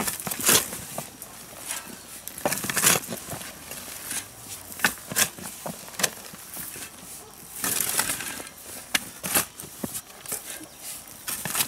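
Hand tool digging into soil: irregular scrapes and strikes, with louder hits near the start, about three seconds in, and around eight and nine seconds in.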